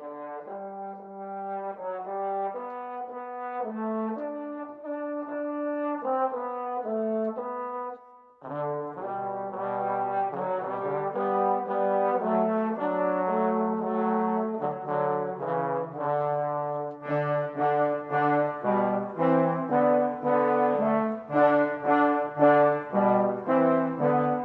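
Brass ensemble playing slow, chordal music. A soft, thin opening passage breaks off briefly about eight seconds in. The music resumes fuller, with a low bass line, and ends in repeated, detached chords that grow louder.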